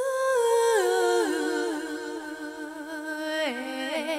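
Unaccompanied vocal line from a 1995 house record with no beat under it. It starts suddenly after a silent break and holds notes that slide down in steps.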